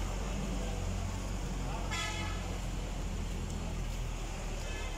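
Street traffic: a steady low engine rumble, with one short vehicle horn toot about two seconds in.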